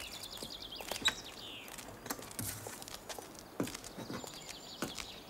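Car bonnet being unlatched and lifted, with a sharp click about a second in and a few lighter knocks, among footsteps on a path. Birds chirp and trill throughout.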